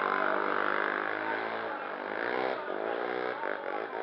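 Sport quad (ATV) engine revving up and down several times, its pitch falling and rising as it is ridden through stunts.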